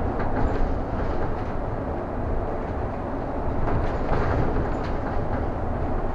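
City bus on the move, heard from inside: steady engine and road rumble, with a few light clicks and rattles.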